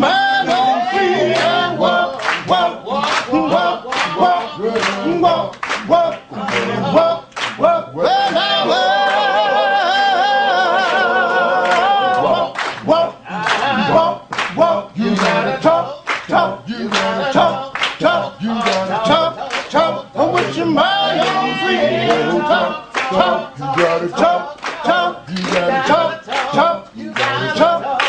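Unaccompanied group singing with steady rhythmic handclapping. About eight seconds in, the voices hold one long wavering note for several seconds before the clapped rhythm returns.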